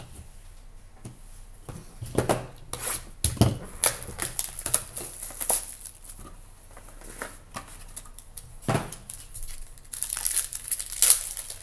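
A small cardboard box of trading cards being handled and set down with a few sharp knocks, then a foil card pack being torn open and crinkled near the end.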